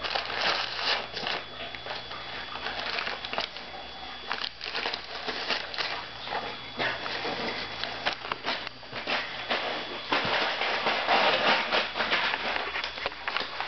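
Brown paper bag crinkling and rustling irregularly as a cat pushes its head into it and rubs and rolls against it, drawn by the catnip scent left inside; the crackling grows denser about ten seconds in.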